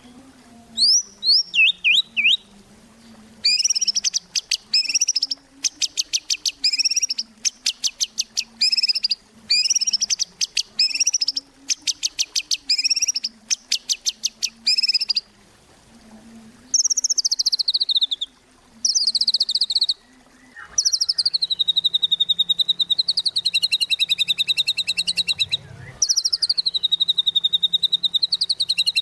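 White-rumped shama (murai batu) singing vigorously: bursts of rapid, evenly repeated high notes, then, from about 17 seconds in, longer rolling trilled phrases that waver up and down in pitch. A faint low hum sits underneath.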